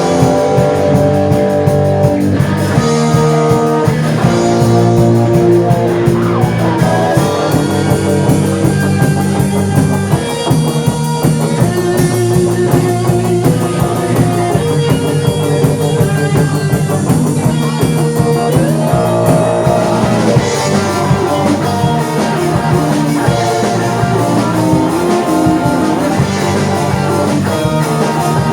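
A band playing an instrumental passage with no singing: melodic lines held over a steady bass line and drums.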